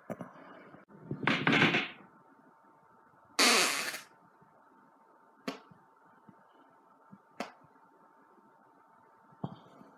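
Two loud human farts, each lasting under a second, about a second in and about three and a half seconds in, with a few brief sharp clicks between them.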